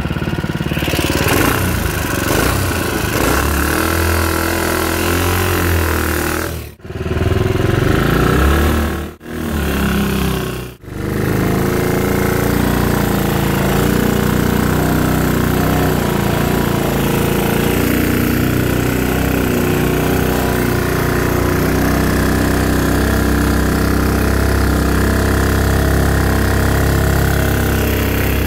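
Single-cylinder Honda GX200 engine, a modified Mud Skipper stage 2 with a Tillotson TCT mechanical fuel injection carburetor, running steadily on a longtail mud motor. The sound breaks off briefly three times a few seconds in, then carries on evenly.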